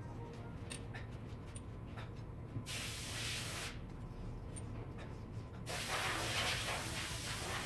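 Pressurised spray hissing in two bursts: one about a second long, then a longer one starting near six seconds in.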